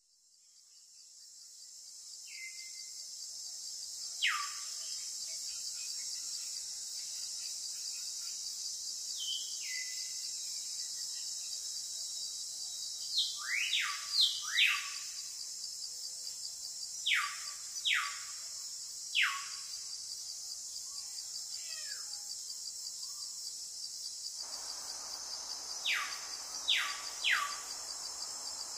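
Steady, high chirring of insects, fading in over the first two seconds, with about a dozen quick, steeply falling bird whistles scattered through it. A soft hiss of background noise joins in about three quarters of the way through.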